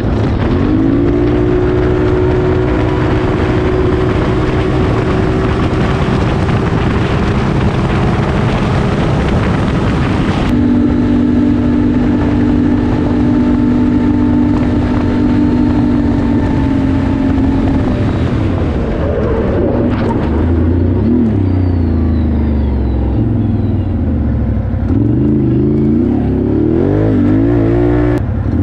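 Can-Am Renegade 1000R ATV's V-twin engine, ECU-remapped and fitted with dual Two Brothers exhausts, running hard at road speed. Its pitch climbs in the first second and holds steady; in the last third it drops and then rises and falls several times as the throttle is eased and opened again.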